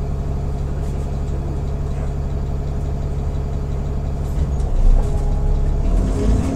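Diesel engine of an Alexander Dennis Enviro400 double-decker bus idling at a stop, heard from inside the saloon. The engine note is steady, then shifts about four and a half seconds in, with a single thump near the five-second mark.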